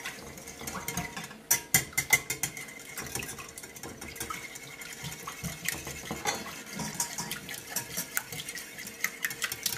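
A whisk beating a liquid egg wash in a bowl: a rapid, uneven run of clicks and taps against the bowl.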